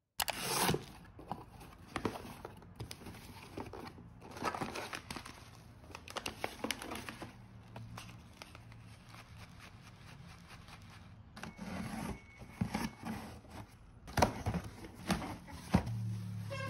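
Packaging being handled during an unboxing: plastic wrap and tea pouches crinkling and rustling, cardboard box flaps moving, with irregular clicks and a few sharper taps near the end.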